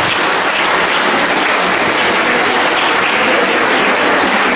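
Audience applauding steadily, a dense patter of many hands clapping in a hall.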